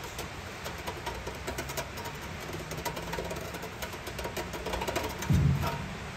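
Steel scribe scratching and clicking around the edge of a hole in a sheet-steel oil pan as it traces the outline onto a piece of sheet steel held underneath. A faint steady hum sits under it, and a brief low thud comes about five seconds in.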